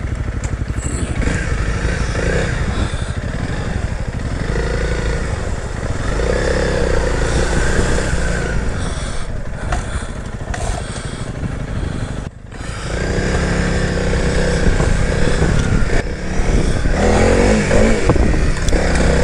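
Honda CRF300L's single-cylinder four-stroke engine running under changing throttle while riding off-road, its pitch rising and falling. About twelve seconds in the engine note drops sharply for a moment, then picks up again.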